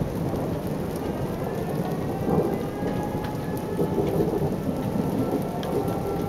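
Thunderstorm: rain falling steadily, with thunder rumbling low underneath and scattered drops ticking close by.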